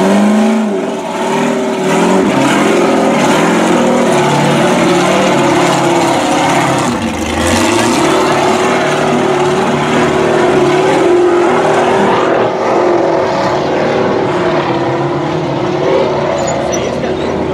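Ultra4 unlimited-class race buggy engines revving hard as the cars climb over boulders, a loud, continuous engine note whose pitch rises and falls with the throttle.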